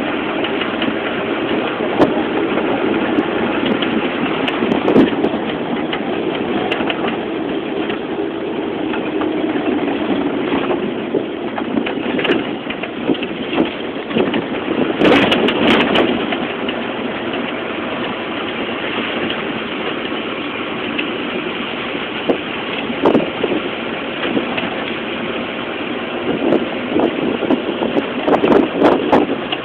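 A vehicle running steadily, with a few sharp knocks.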